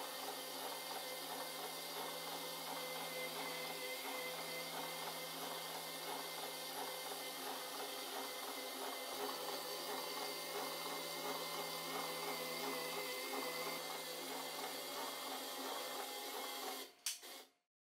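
Stepper motor of a small Arduino-driven machine running with a steady electric whine and hum, the motor driving a toy CT scanner's sliding table and belt-driven ring. It stops about a second before the end.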